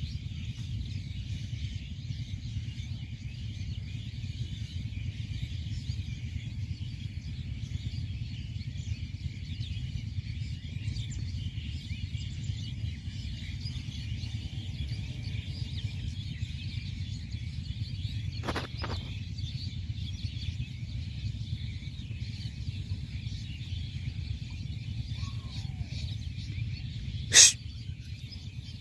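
Open-field ambience: a steady low rumble of wind on the microphone, with faint birds chirping in the background. Two faint knocks come a little past halfway, and one sharp, loud click comes near the end.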